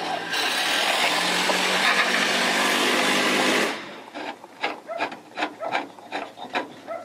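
Power drill driving a long gutter screw through the gutter and its bushing into the wooden fascia, running steadily for about three seconds and then stopping abruptly. Short knocks and taps follow.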